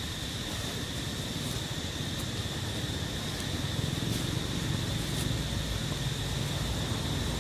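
Outdoor ambience: a steady, high-pitched insect drone over a low rumble that grows a little louder about halfway through.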